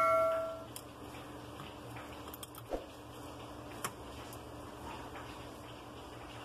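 A bell chime from a subscribe-button animation fades out in the first moment, then a few faint sharp clicks as a Vivo Y19's circuit board is worked loose with tweezers and lifted out of the phone's frame.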